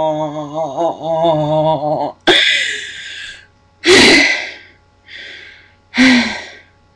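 A woman's long-held sung note, steady with a slight wobble, breaks off about two seconds in. Three loud gasping breaths follow, about two seconds apart, with fainter breaths between them, as she recovers from holding the one note for almost sixty seconds.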